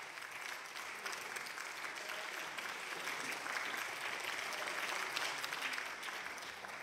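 Lawmakers in the chamber applauding: many people clapping at a steady level.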